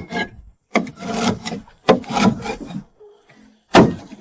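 Four scraping strokes against the planks of an old wooden boat's keel, each starting sharply and the middle two dragging on rasping. The wood sounds hollow, like an empty box rather than solid timber, the sign of a hidden compartment under the sealant.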